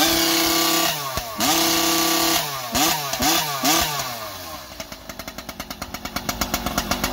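Husqvarna two-stroke chainsaw with an expansion-chamber exhaust pipe, revved wide open twice and held flat against its rev limiter, which it hits almost instantly. Then it gets several quick throttle blips and drops to an even, pulsing idle.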